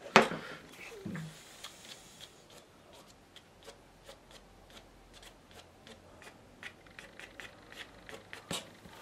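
Light, irregular taps and clicks of a hand and brush dabbing paint onto watercolour paper on an easel, a few a second. A sharp knock comes just after the start and a stronger tap near the end.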